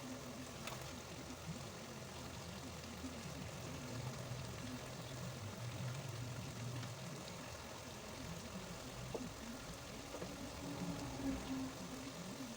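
Water boiling in a cooking pot: a steady bubbling hiss, with a faint low hum underneath.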